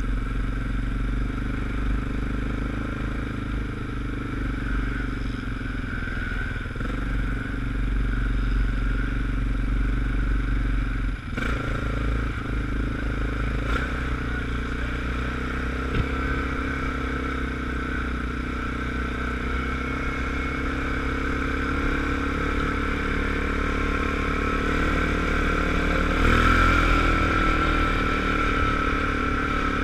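ATV engine running under way, heard from the rider's own machine, which is fitted with an aftermarket performance exhaust tip that adds bass. The engine note shifts about a third of the way in, with a brief knock, and grows louder near the end.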